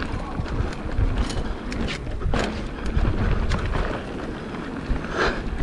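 Mountain bike riding down a dirt trail: wind rumbling on the microphone, with scattered sharp clicks and knocks as the bike rattles over the ground, a louder knock a little after two seconds and another near the end.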